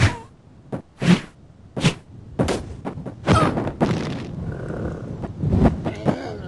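Cartoon sound effects: an irregular run of about nine thumps and knocks, the sound of a cartoon character falling and landing on the ground.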